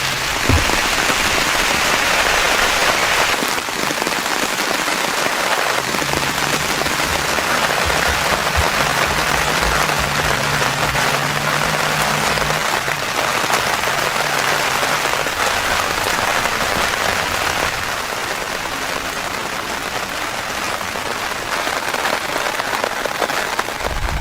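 Heavy rain falling steadily on a tent, with a faint low hum underneath for a stretch in the middle.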